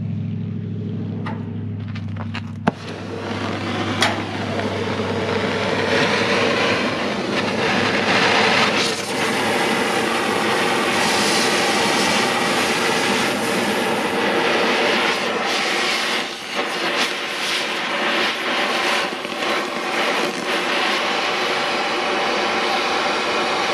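Angle grinder running, first spinning freely with a steady hum, then from about three seconds in working into mild steel plate with a steady, dense grinding hiss.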